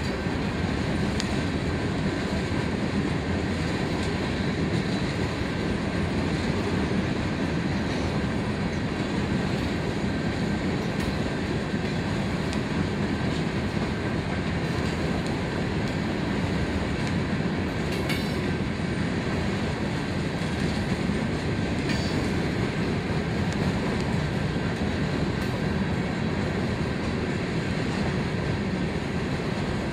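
Freight train rolling by: a steady rumble of wheels on rail.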